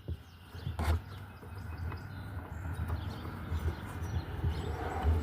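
Hand tightening the plastic retaining knob of a car's taillight assembly from inside the trunk: scattered clicks and rubbing of plastic on plastic, with a sharp click just under a second in.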